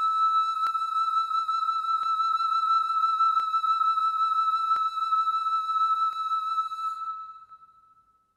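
Bamboo flute holding a single high note with a slight vibrato that fades away to end the piece. Soft, evenly spaced clicks fall about every second and a half beneath it.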